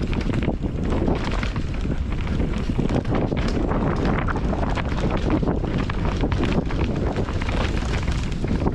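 Wind buffeting the microphone as a mountain bike descends at speed, with the steady rush of tyres on a dirt trail and many short rattles and knocks from the bike over rough ground.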